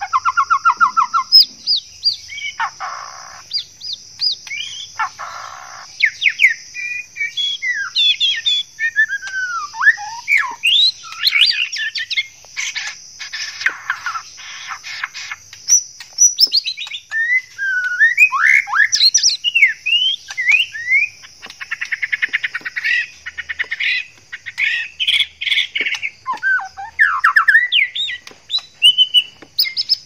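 Male white-rumped shama singing a varied courtship song of clear whistles, notes sliding up and down, and quick trills, the song of a male in breeding condition. A steady high-pitched hiss runs behind the song.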